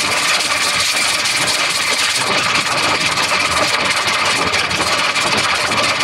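A steady, harsh noise from heavily effects-distorted audio, more hiss than rumble. It stops abruptly at the end.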